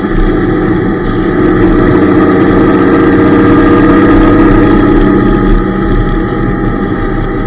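Honda Gold Wing touring motorcycle cruising at road speed: engine running under wind rush over the fairing, with the group's motorcycles ahead, getting somewhat louder a couple of seconds in.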